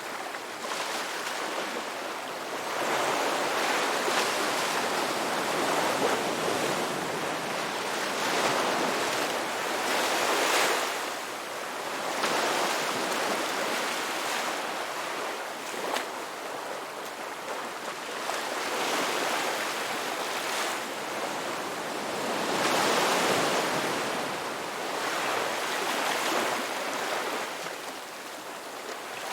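Ocean waves breaking and washing on a shore, the surf swelling and easing every few seconds.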